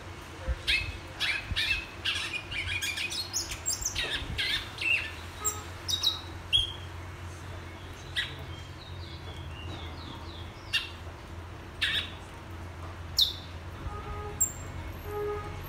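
Caged seed-finch (bicudo / twa-twa) singing: a quick run of chirped and whistled notes for the first several seconds, then scattered single notes, one a sharp falling whistle near the end. A steady low hum runs underneath.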